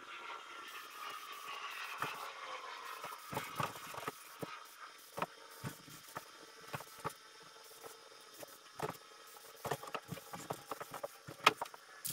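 A passing motor vehicle, its pitch sliding slowly down over the first few seconds, with scattered sharp clicks and knocks throughout.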